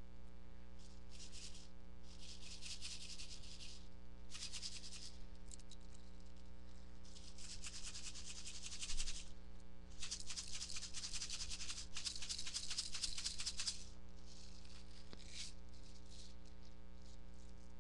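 A plastic pack of 6 mm BBs handled close to the microphone, rustling and rattling in bursts from about one to four seconds long, the longest near the middle. A steady electrical hum runs underneath.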